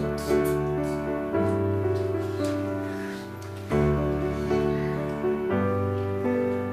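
Background piano music: gentle, sustained chords with a steady bass, changing every second or two.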